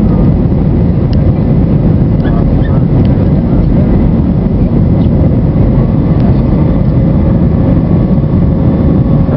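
Steady loud roar of an airliner's engines and rushing air, heard from inside the cabin during the climb after takeoff.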